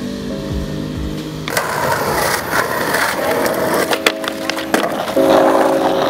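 Skateboard wheels rolling on rough pavement, starting about a second and a half in, with several sharp clacks of the board hitting a concrete curb, over background music with long held notes.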